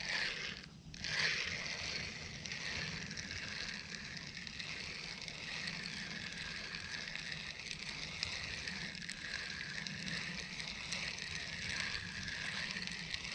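Fishing reel being cranked steadily, retrieving a spinnerbait, a continuous whirring.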